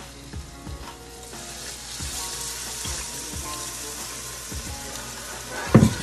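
Chicken broth poured into a hot pan of sautéed onions, bell pepper and cooked flour, sizzling as the liquid hits; the sizzle starts about a second in and holds. A sharp knock near the end.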